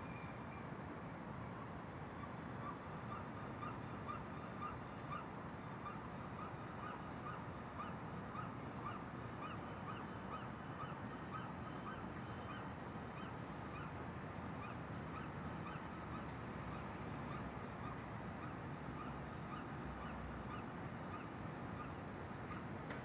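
Birds calling in a long run of short, repeated calls, about two or three a second, over a steady low background rumble.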